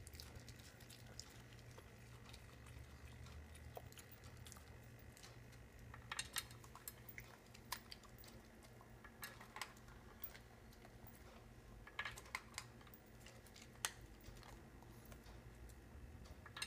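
Small dog crunching dry kibble from a metal bowl. The chewing is faint, in short bursts of crunches that start about six seconds in and come again several times.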